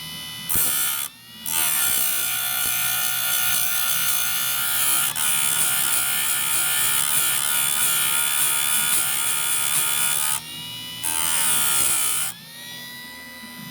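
Electric chainsaw chain sharpener's grinding wheel grinding a chain tooth in three passes: a brief one, a long one of about nine seconds and another brief one near the end, over the steady whine of its motor.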